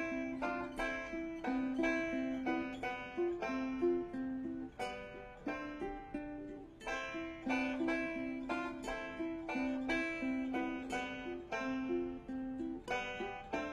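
Instrumental break of an acoustic folk-bluegrass song: banjo, ukulele and acoustic guitar played together, a busy repeating plucked melody over strummed chords, with no singing.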